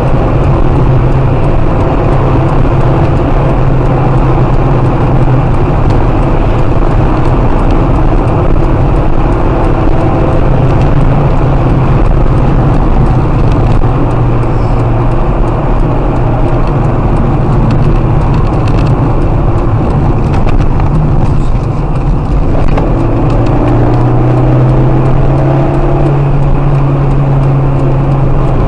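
Car engine and road noise heard from inside the cabin while driving fast: a loud steady drone that eases off briefly about 22 seconds in, then builds again as the car accelerates.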